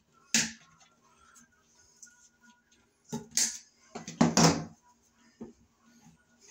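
A few sharp snips and clicks from side cutters and hand tools, with a short run of clicks and rustling about four seconds in, as leftover cable jacket is clipped off and the wires are handled at a metal electrical box.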